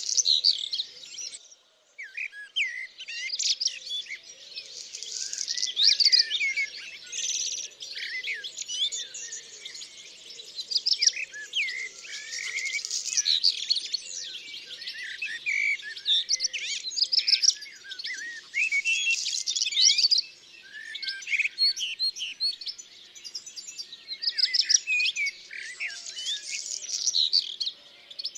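Birds chirping and singing, with many quick overlapping calls and a short break about two seconds in.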